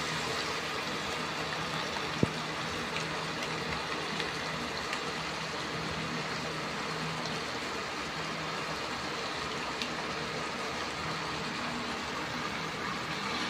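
Chicken pieces sizzling steadily in a stainless steel pot on an induction cooktop, over a steady low hum, with a single sharp click about two seconds in.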